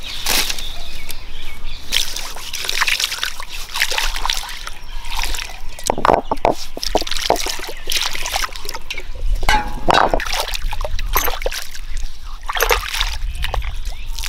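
Water poured from a steel tumbler over a stone grinding mortar (aattukal) and swished by hand over the stone as it is washed, splashing and trickling in uneven bursts.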